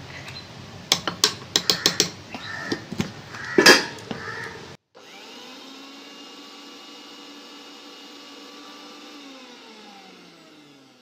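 A spoon clinks and scrapes against a small stainless-steel mixer-grinder jar as cocoa powder is tipped in, giving a few sharp knocks. About five seconds in, the mixer grinder's motor starts up with a steady whine, grinding peanut paste with cocoa and sugar. A few seconds later it is switched off, and its pitch falls as it winds down.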